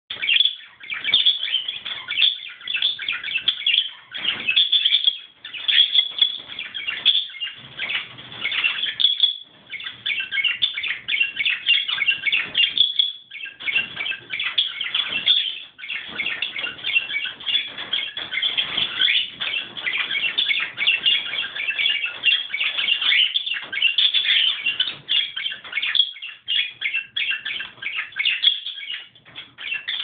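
Male budgerigar's courtship warble: a continuous fast chatter of chirps, broken by brief pauses.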